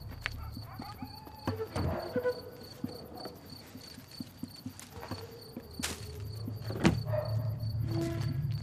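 Crickets chirping in a steady, even pulse, with scattered small clicks and rustles, a sharper knock about seven seconds in, and a low rumble that swells back in near the end.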